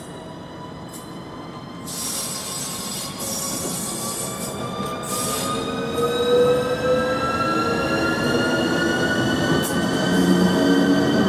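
ČD class 380 (Škoda 109E) electric locomotive pulling a passenger train past, its traction equipment whining in several tones that rise steadily in pitch as it accelerates. It grows louder as it comes close, with a few brief high hissing bursts.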